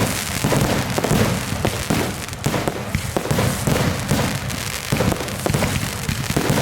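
Fireworks and firecrackers popping and crackling in rapid, near-continuous succession, a dense run of sharp bangs with no let-up.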